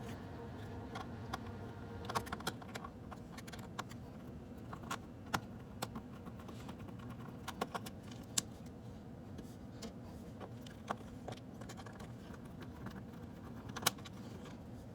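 Scattered light clicks and taps of a screwdriver, screws and small metal and plastic latch parts being worked loose and handled on a plastic reptile enclosure, over a faint steady hum.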